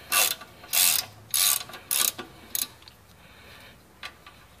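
Ratchet wrench clicking in five quick runs, close to two a second, as it loosens a brake caliper bolt; the clicking stops about two and a half seconds in.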